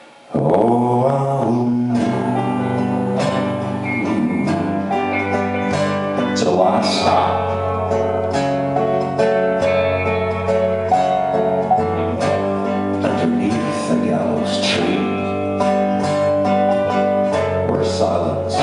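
Live band music: guitar and other plucked strings over a steady bass line, coming in abruptly right after a near-quiet pause and carrying on at a steady level.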